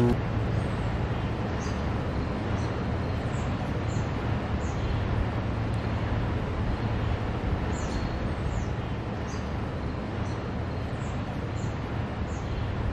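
Steady outdoor background rumble with a low hum, and faint, short, high chirps every second or so.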